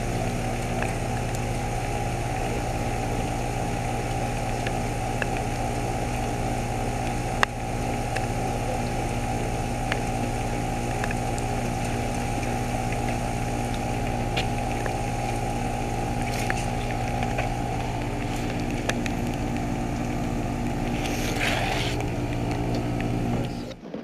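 Outdoor unit of a 2022 Ruud Achiever heat pump running in defrost on a frozen-over coil: a steady compressor hum with several fixed tones, and one sharp click about seven and a half seconds in. The hum stops abruptly just before the end.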